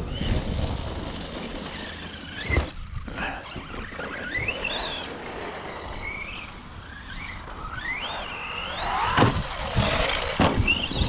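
Brushless electric RC truck's motor whining, rising and falling in pitch again and again as the throttle is pushed and released, over tyre and dirt noise. A few thumps cut in, the loudest about nine seconds in.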